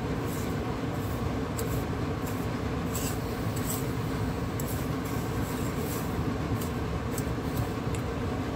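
A metal spoon stirring granulated sugar in hot oil in a metal pot, giving short scrapes and clinks against the pot over a steady low rumble.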